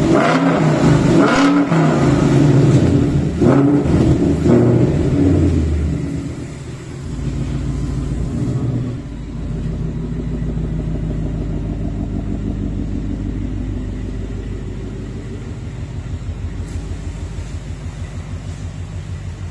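Ford Mustang GT's V8 through an aftermarket performance exhaust, blipped hard four times in the first six seconds. It then drops back to a steady, low, pulsing burble.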